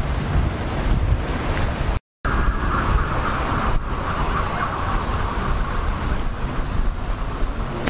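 Wind buffeting the microphone over rough surf. About two seconds in the sound drops out for a moment, then a personal watercraft's engine runs at speed with a steady whine, while the wind rumble continues.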